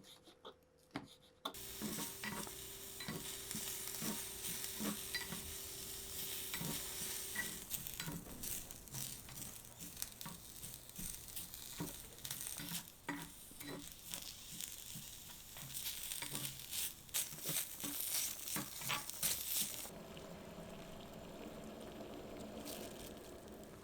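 Food sizzling as it fries in a tiny miniature pan, with frequent small clicks and scrapes of a utensil stirring it. The sizzle starts suddenly about a second and a half in and gives way to a softer, lower steady sound near the end.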